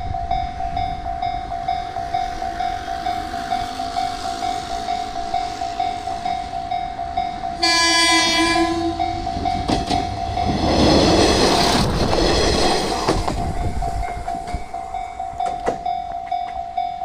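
Japanese level-crossing alarm ringing steadily with its repeated "koten, koten" tone. About seven and a half seconds in, a train horn blows once for about a second and a half. Then a silver Ibara Railway railcar passes over the crossing with a loud rumble for a few seconds while the alarm keeps ringing.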